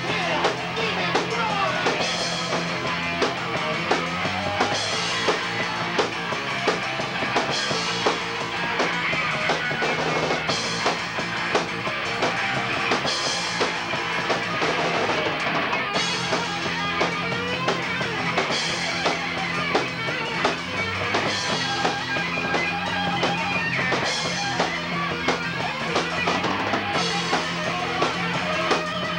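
Heavy metal band playing live: electric guitar, bass guitar and drum kit, with cymbal crashes recurring about every two and a half seconds.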